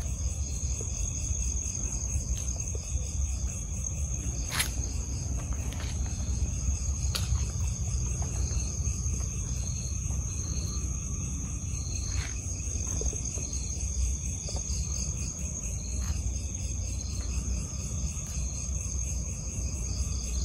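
Night crickets chirring: a continuous high, steady trill with a second, pulsing chirp running beneath it, over a low rumble, with a few sharp clicks, the clearest about four and a half seconds in.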